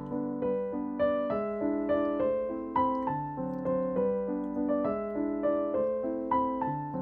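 Background piano music: single notes struck at an even, gentle pace over a steady lower line, each note fading after it is struck.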